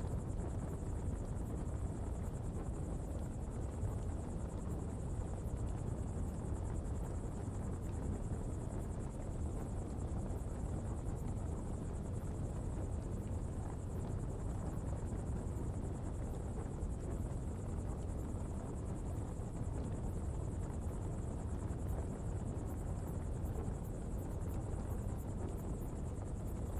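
Coal pottery fire burning with a steady low rush, and a steady high insect buzz over it.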